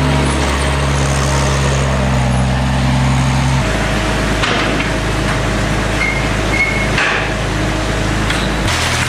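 Avant compact articulated loader's engine running steadily. Its drone jumps to a different pitch about three and a half seconds in and again near the end. A couple of clunks come from the machine and its mixer bucket in the middle.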